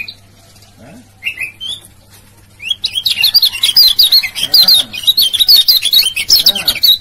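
Caged kecial kuning (lemon-bellied white-eye) singing. After a short call about a second in, it breaks into a fast, unbroken run of high chirping notes that lasts from a little before halfway to the end.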